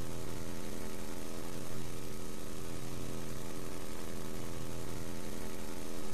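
A steady, low electrical buzzing hum with many overtones over a bed of hiss, holding unchanged throughout.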